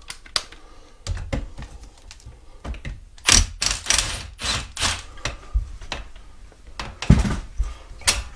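Metal clicks and knocks from the rear suspension spring and its mount on a Shoprider mobility scooter as the spring is worked off by hand. Around the middle comes a quick run of about six short scraping strokes, and there is another burst near the end.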